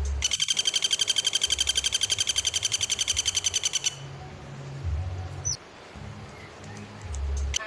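An animal's rapid, high-pitched pulsed trill of about ten pulses a second, lasting nearly four seconds, followed by a few faint chirps and low thuds.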